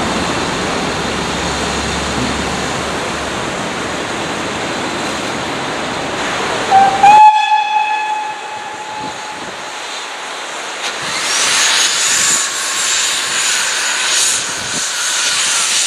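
Steady rushing noise, then about seven seconds in a steam locomotive's whistle gives one short blast, slightly rising at its start. From about eleven seconds a loud steam hiss as the tank engine starts away with steam blowing from the cylinders.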